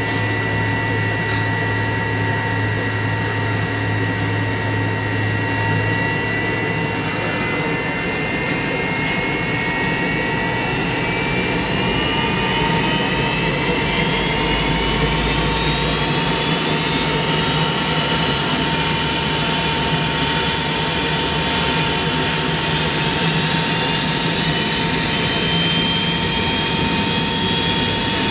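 McDonnell Douglas MD-88's rear-mounted Pratt & Whitney JT8D turbofans heard from inside the cabin: a steady drone under a high whine. The whine begins climbing slowly in pitch about six seconds in as the engines spool up.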